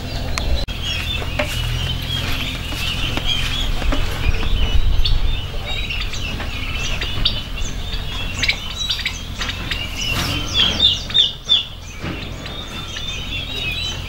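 Many young poultry chicks peeping and cheeping together. The calls are louder and sharper about ten to eleven and a half seconds in, over a low steady rumble.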